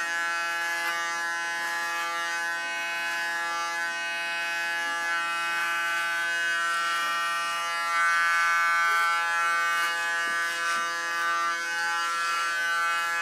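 Electric hair clipper running with a steady hum as it cuts a short buzz cut, a little louder from about two-thirds of the way in.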